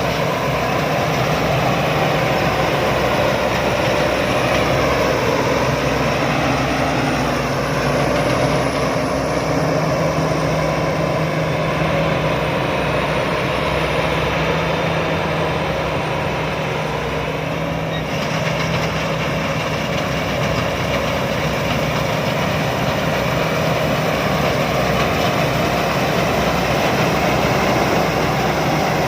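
Rice combine harvester's engine and threshing machinery running steadily while harvesting, easing slightly about 18 seconds in.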